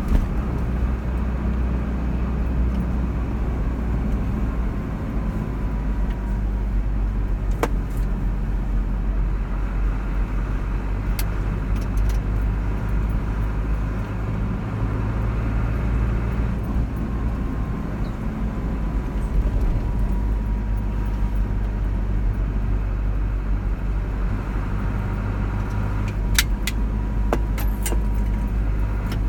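A car driving steadily along a road: continuous engine and road noise, with a few sharp clicks now and then.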